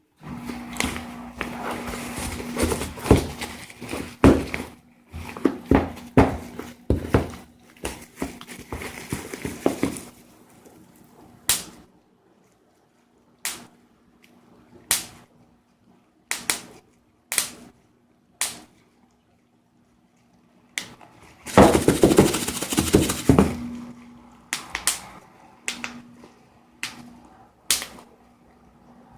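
Packaging being handled and pulled open by hand: stretches of rustling and scraping with many clicks and knocks, then scattered single clicks between quiet pauses, and another short burst of rustling about two-thirds of the way through.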